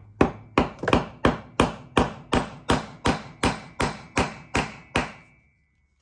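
Ball-pein hammer striking a copper cable lug on the anvil of a steel bench vise, about fifteen even blows at roughly three a second, metal on metal with a faint ring, stopping about five seconds in. The lug's barrel is being hammered flat to crimp it onto the cable without a crimping tool.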